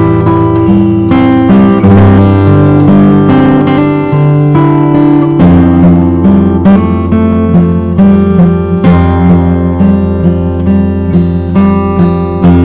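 Background music: acoustic guitar playing over a steady bass line, with strummed and plucked notes.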